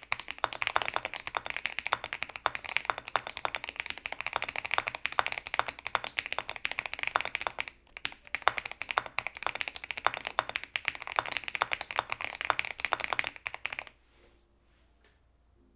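Fast typing on a LEGO-built Kit Adam 60% mechanical keyboard with lubed Akko Lavender tactile switches, tape mod, PE foam and GMK keycaps: a dense, continuous clatter of keystrokes. There is a brief pause about eight seconds in, and the typing stops about two seconds before the end.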